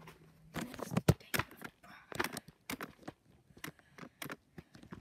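Irregular clicks, knocks and rustles of a phone being handled close to its microphone, fingers and hair brushing against it, with the loudest knock about a second in.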